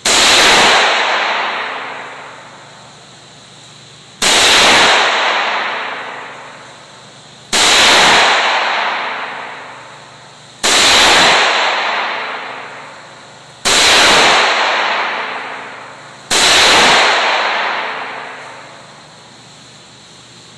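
Six shots from a Taurus .357 Magnum revolver fired double action, spaced about three seconds apart. Each sharp report rings on in a long echo that dies away over about two seconds in the enclosed indoor range.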